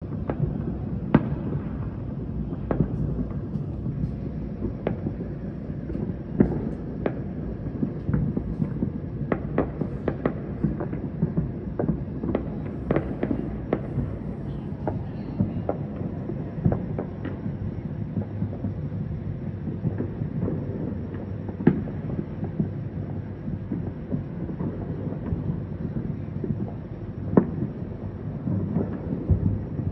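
Fireworks and firecrackers going off across the city: dozens of irregular sharp bangs and pops near and far, a few much louder than the rest, over a steady low din.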